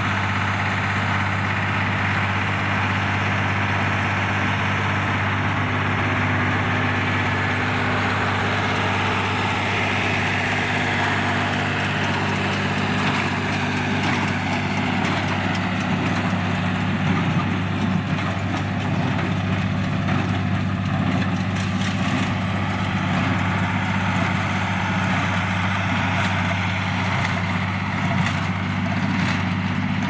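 John Deere tractor engine running steadily while powering a John Deere 214T square baler. From about halfway through, frequent clicking and clattering from the baler's moving parts joins the engine.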